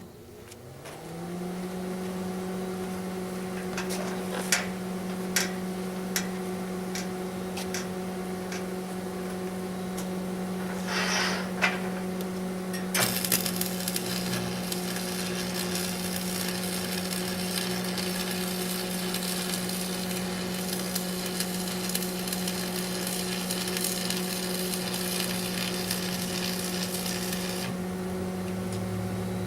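A machine switches on with a click and its motor hum rises in pitch over about a second, then runs steadily. About thirteen seconds in, a steady crackling hiss starts, typical of an electric welding arc, and stops near the end while the hum runs on.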